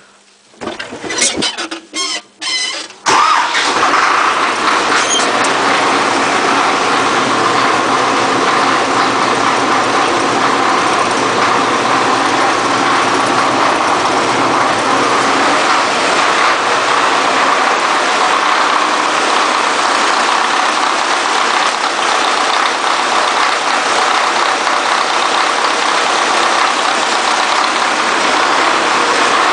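YUMZ-6 tractor's four-cylinder diesel engine being started: a few seconds of uneven cranking, then it catches suddenly about three seconds in and settles into a loud, steady run.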